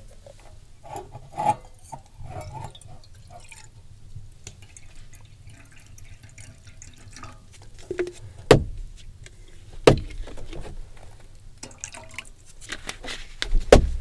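Handling noises of small rustles and light clicks, then three sharp knocks, the loudest near the end.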